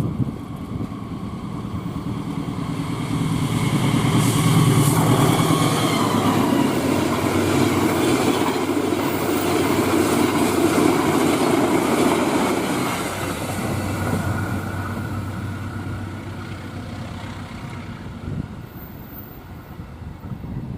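Passenger train passing at high speed: the rumble and wheel noise build over a few seconds, stay loud for several seconds as the carriages go by, then fade away.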